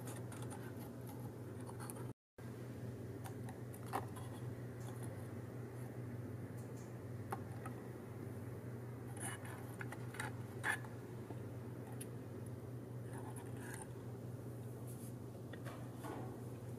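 Faint scratching and a few soft clicks of paper toy pieces being handled and set in place, over a steady low hum. The sound cuts out briefly about two seconds in.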